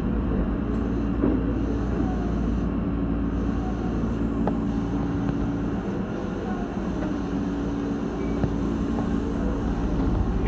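Electric commuter train heard from the driver's cab, running slowly with a steady low rumble and hum and a few faint clicks.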